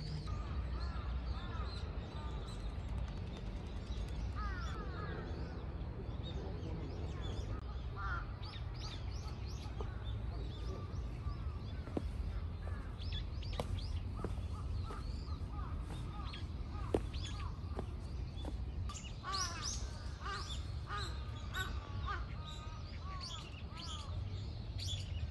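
Crows cawing and smaller birds chirping, in short calls that come and go with busier stretches, over a steady low background rumble.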